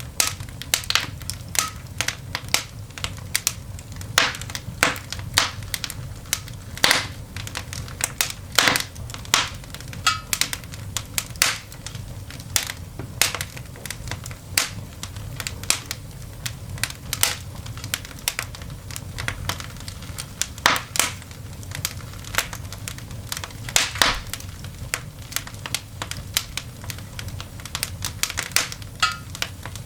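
A coal fire burning in a cast iron dog grate, crackling with many irregular sharp snaps and pops, a few of them ending in a brief squeak.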